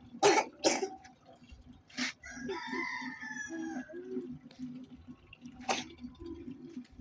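A rooster crows once, about two seconds in, for under two seconds. Several sharp taps or knocks come before and after the crow.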